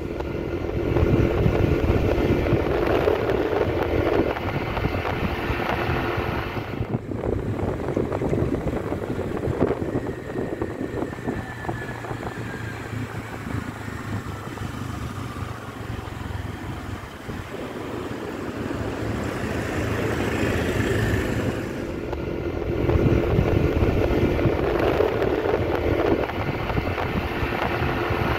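Wind rushing over the microphone while riding a motorcycle in traffic, over the steady hum of the engine and tyre noise. The sound breaks off suddenly about seven seconds in and shifts again around twenty-two seconds.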